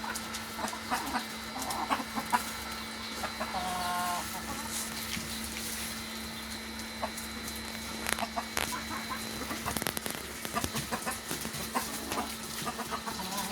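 Desi chickens clucking, with a drawn-out call about three and a half seconds in and scattered short clucks throughout, over a steady low hum.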